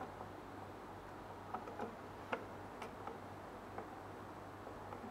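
Faint, scattered light clicks of small metal parts and tools being handled on a printer's print-head carriage during print-head installation, about half a dozen in all, over a steady low hum.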